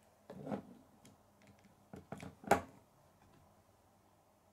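Plastic K'nex pieces clicking and snapping together as parts are fitted onto the model: a few short clicks, the sharpest snap about two and a half seconds in.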